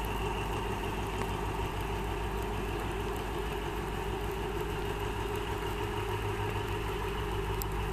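Diesel locomotive of a passenger train running steadily as it crawls across a trestle viaduct: an even, unbroken low engine hum.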